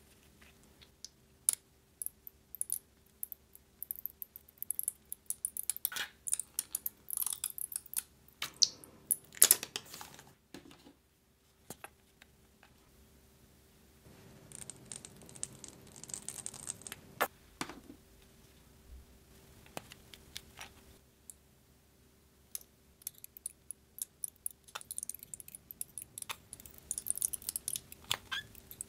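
Plastic squeeze bottles of puffy paint being handled, with small sharp clicks and ticks as the caps are worked. Midway there is a hissing, sputtering squirt as paint is squeezed out of a bottle onto the slime toppings, then more clicking near the end.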